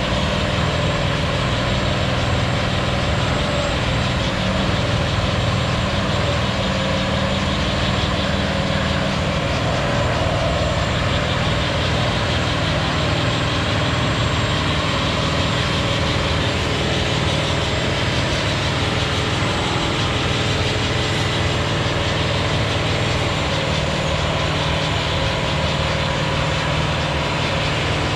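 Heavy truck's diesel engine running steadily at an even pitch and loudness, with no revving up or down.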